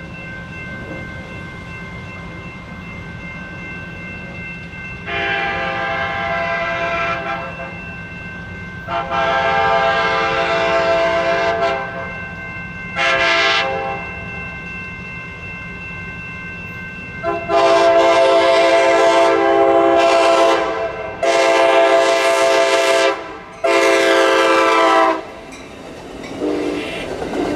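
Amtrak passenger train's air horn sounding for a grade crossing: two long blasts, a short one, a long one, then two more long blasts as it nears the crossing, over the crossing bell's steady ringing. Near the end the train's cars rumble past on the rails.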